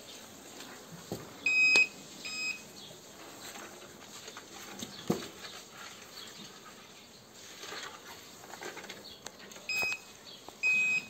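Handheld cattle metal detector pressed against a cow's lower belly, giving short high beeps, two about a second and a half in and two more near the end. The beeps mean it is picking up metal at the spot where swallowed metal collects in the cow's forestomach.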